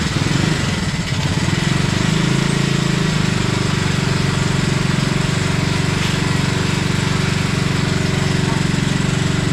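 Yamaha WR155R's single-cylinder four-stroke engine idling steadily, its firing pulses even and close-miked.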